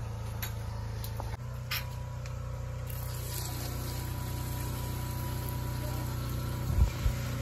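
Hot water is poured from a pot onto rice in a metal cooking pot, a splashing pour starting about three seconds in, over a steady low engine-like hum. Two low thumps come near the end.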